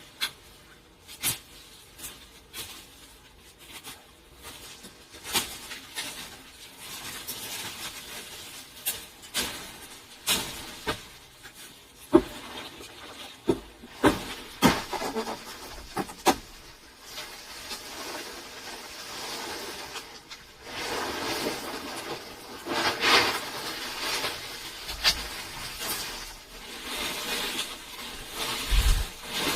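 Irregular knocks and clatter, a dozen or more sharp hits spread unevenly, with scraping and rustling between them that thickens in the second half.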